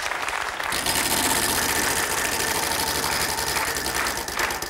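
Large game-show prize wheel spinning: its pointer clicks rapidly over the pegs, starting about a second in, and slows to a few separate ticks a second near the end.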